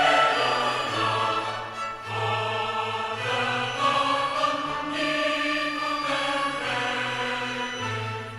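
Orchestral film music with a choir, long held notes over a steady bass line, played back through Bose Companion 2 Series III computer speakers.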